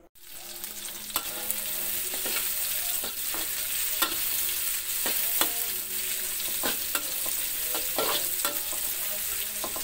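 Chopped chillies, shallots and garlic sizzling in hot oil in a metal wok, with a metal spoon clinking and scraping against the wok at irregular moments as they are stirred. The sizzle builds over the first second or two.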